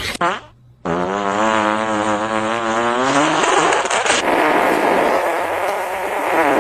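A long, buzzy fart sound from a cat in an AI-generated video. It starts about a second in after a brief hush, holds a steady pitch for a couple of seconds, then turns into a long hissing rush.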